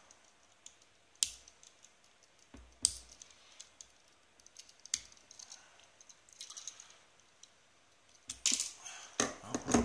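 Sharp metallic clicks and scraping as the tip of a saw blade pries at the retaining clip inside an aluminium Matlock 5025 padlock. There are single clicks every second or two, then a quick flurry of clicks near the end.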